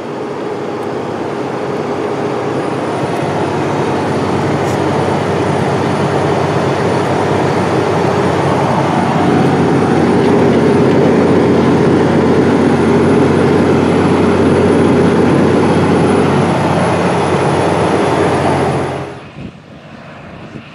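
The Cummins QSX15 six-cylinder diesel of a John Deere 9620R running steadily under load at about 1880 rpm, pulling a 60 ft anhydrous toolbar. It is heard from the cab as a steady drone that grows louder toward the middle. Near the end it gives way suddenly to the much quieter, distant sound of tractors working the field.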